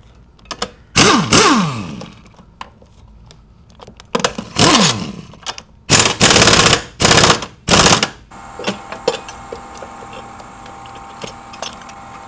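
Cordless impact wrench hammering in about five short, loud bursts, spinning out the bolts of an engine mount bracket. After about eight seconds it goes quieter, with only a few light clicks.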